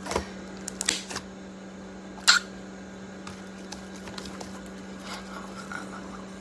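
Handling noises: a few light clicks and taps, then one sharp click a little over two seconds in, over a steady low hum.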